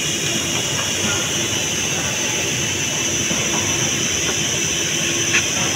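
Steady hum and hiss of a busy car workshop, with a couple of faint clicks near the end as hands work on the steering rack.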